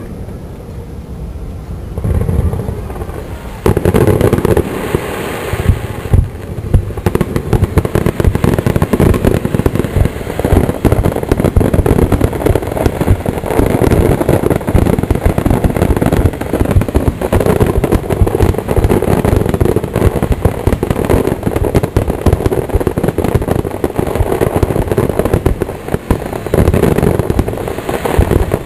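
Fireworks display: a dense, rapid barrage of shell bursts, many bangs overlapping with hardly a gap. It picks up a few seconds in and keeps going.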